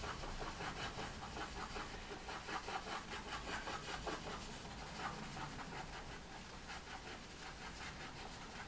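Pastel pencil scratching over textured pastel paper in quick short strokes, dabbing in tree foliage.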